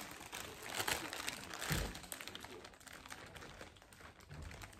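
Packaging being handled: irregular crinkling and rustling, with a dull knock a little under two seconds in.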